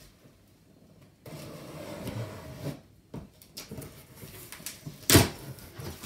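Knife cutting the packing tape on a cardboard box, with scraping and rustling of the cardboard in stretches, and one sharp knock about five seconds in.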